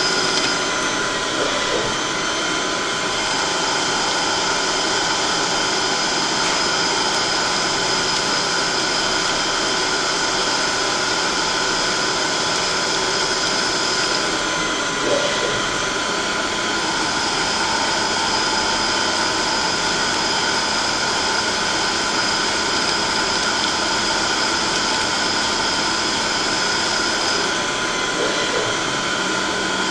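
CNC machine tool running, a steady mechanical hum with several fixed tones. A high whine cuts out about 14 seconds in, comes back a few seconds later, and stops again near the end.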